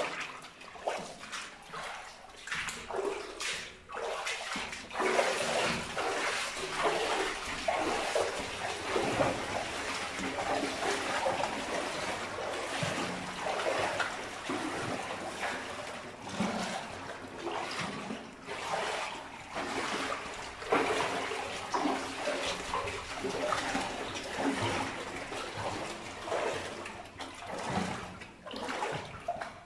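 Footsteps wading through shallow water in rubber waders: irregular splashing and sloshing with each step.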